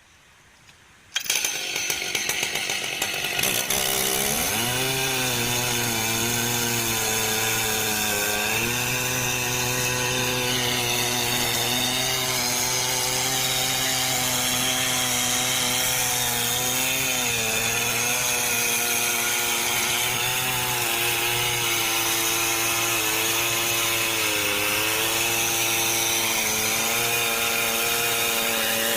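A Stihl chainsaw starts up about a second in and runs at high throttle cutting into a large tree. The engine pitch sags and recovers several times as the bar bites into the wood.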